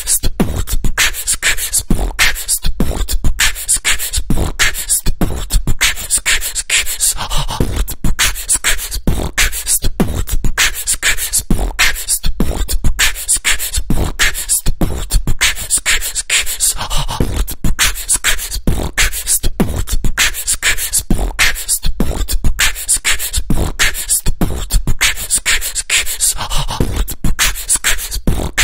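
Background music: a vocal beatbox loop of mouth-made beats in a fast, steady rhythm.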